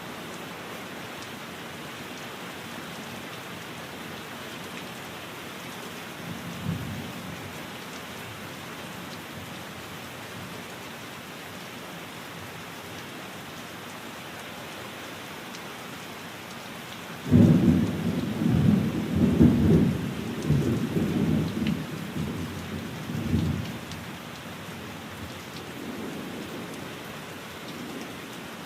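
Steady rain falling, with thunder: a faint low rumble about six seconds in, then a loud rumble that starts suddenly past the halfway point, rolls in pulses for several seconds and fades.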